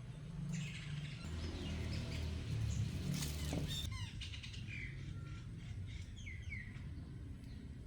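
Small birds chirping in short, repeated calls. A louder stretch of rough noise swells in the first half and peaks about three seconds in, then drops away.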